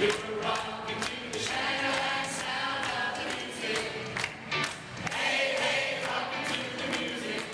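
A choir singing a 1970s pop song with a steady drum beat behind it.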